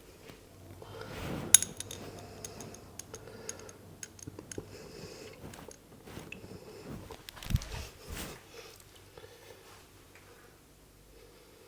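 Sounds of hands working a head massage: scattered light clicks and taps with soft rubbing between them. A sharp click comes about a second and a half in, and a duller knock comes near eight seconds.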